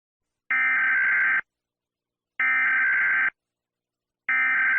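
EAS SAME digital header, sent as three identical bursts of screechy, warbling data noise about two seconds apart. This is the coded header that comes before the attention tone of a new alert, here an Emergency Action Termination.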